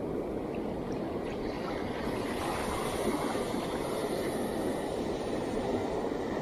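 Ocean surf breaking and washing up a sandy beach as a steady rush of water, a little fuller about halfway through, with wind rumbling on the microphone.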